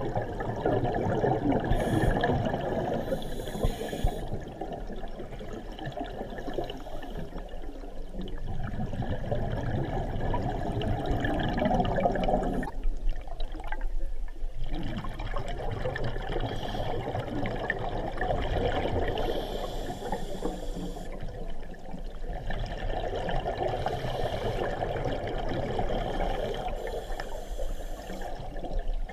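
Scuba divers breathing through their regulators underwater: waves of bubbling exhaust from the regulators, each lasting several seconds, with a short lull about thirteen seconds in.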